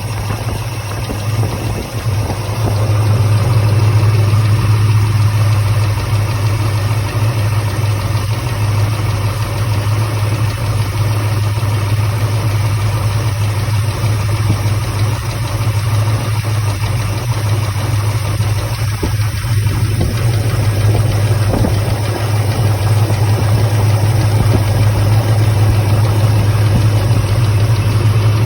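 Chevrolet 454 big-block V8 idling steadily with a lifter tick and a misfire, the misfire shaking the engine: a sign of a bad lifter.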